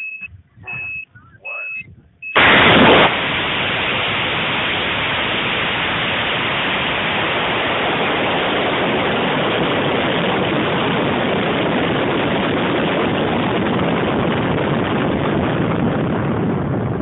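Cesaroni Pro38 6GXL high-power rocket motor igniting about two seconds in with a sudden loud blast, then a steady loud rushing noise of the motor and airflow on the onboard camera as the rocket climbs. Short high beeps come before the ignition.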